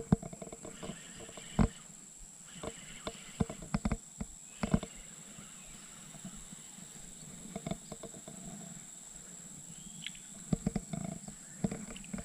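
Scattered light clicks and knocks from a fishing rod and spinning reel being handled in a small boat, with a cluster of them near the end as a prawn is brought up to the surface, over a steady faint high tone.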